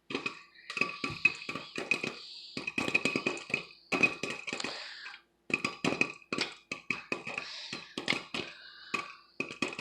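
Popcorn kernels popping in hot oil in a pot on the stovetop: rapid, irregular sharp pops.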